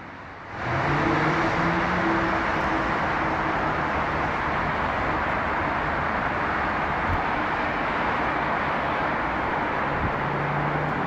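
Steady, even wash of freeway traffic heard from above, a constant mix of tyre and engine noise with no single vehicle standing out.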